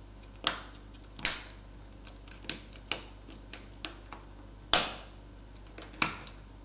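Plastic catches of an LG V20's rear frame piece snapping into place as it is pressed down onto the phone: a series of sharp irregular clicks with fainter ticks between, the loudest about a second in and near five seconds in.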